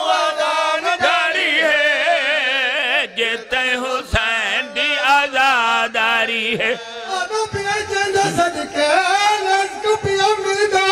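Men chanting a mournful sung recitation together, long held notes with a heavy waver. The pitch drops to a lower sustained note about seven seconds in.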